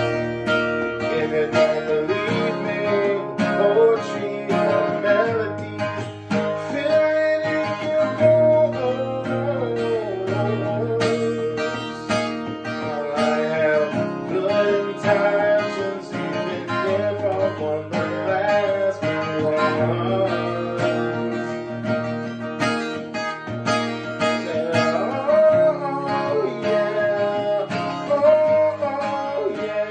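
Ibanez cutaway acoustic guitar strummed, a steady run of chords.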